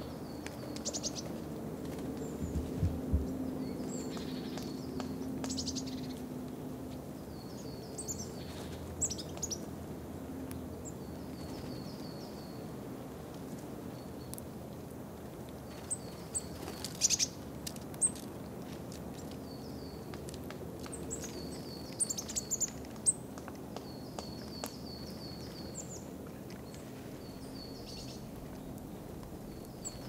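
Small birds chirping in the background: short phrases of quick, falling high notes repeated every second or two. A few sharp taps come around the middle and again later, from a black woodpecker pecking at fat smeared on a tree trunk.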